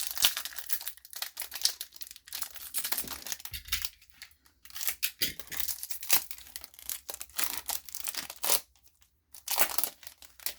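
Foil wrapper of a hockey trading card pack being torn open and crinkled, in irregular crackling rips with a last cluster near the end.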